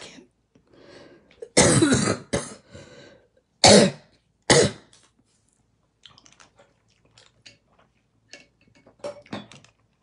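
A woman with a hoarse voice coughing: a harsh cough with a short second one about one and a half seconds in, then two more sharp coughs around three and a half and four and a half seconds. Faint small clicks and taps follow.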